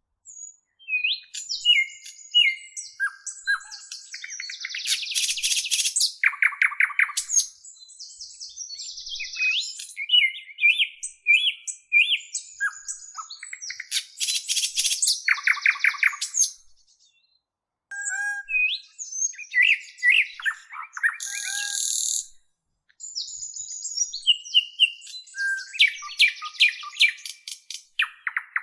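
Songbird singing a long, varied song of high whistled notes, quick slurred phrases and fast rattling trills, with a brief pause about 17 seconds in.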